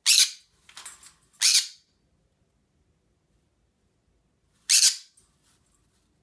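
Green-cheeked conure giving short, shrill squawks: two loud ones in the first two seconds with a softer chirp between, then another after a pause of about three seconds.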